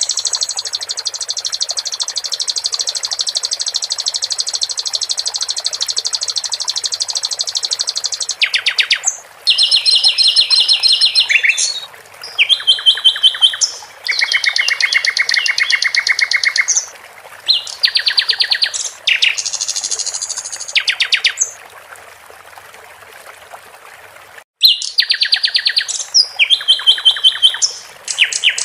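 A common nightingale (sikatan londo) sings long, fast trills and runs of rapidly repeated high notes over a steady babble of running water. Late on, the song stops for a couple of seconds and only the water is heard.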